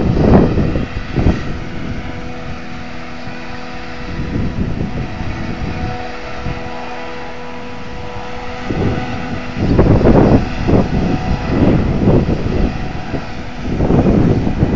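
Strong wind buffeting the microphone in repeated gusts, strongest about ten seconds in, over the steady running of a diesel farm machine's engine.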